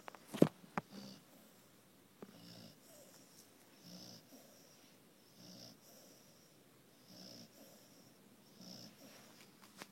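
Slow, soft snoring breaths, about one every one and a half seconds. A few sharp clicks come in the first second, one louder than the rest, and another near the end.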